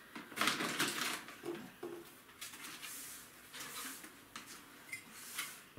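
Plastic bags of pet food rustling as they are set down, then a broom swishing across linoleum in several short strokes.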